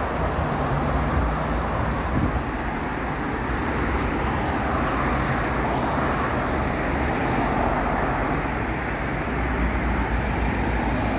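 Ride noise inside a moving city bus: a steady low drone from the bus's drivetrain under a haze of tyre and road noise, with no clear change in speed.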